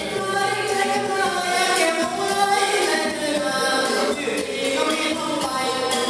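Live singing through a stage PA in Thai likay folk-theatre style: long, wavering sung lines over instrumental accompaniment.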